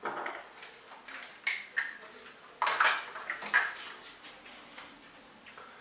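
Small plastic capsules clinking and knocking against a glass bowl as a hand rummages through them and picks one out. A scattered series of short clicks, with the loudest cluster about halfway through.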